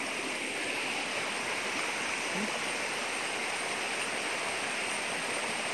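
Small rocky woodland stream running over little cascades: a steady rush of flowing water.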